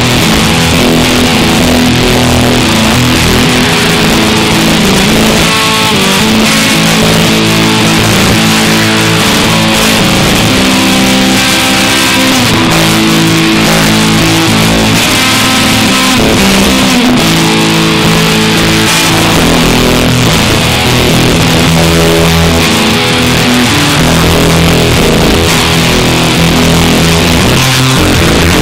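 Electric guitar played through a Line 6 Spider IV 15 amplifier: loud, noisy sustained notes and drones, the pitches shifting every second or two over a constant hiss.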